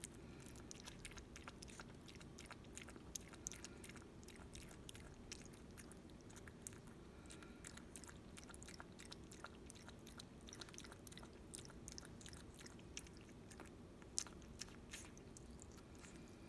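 Chihuahua puppy lapping water from a stainless steel bowl: faint, quick, irregular wet tongue clicks, several a second.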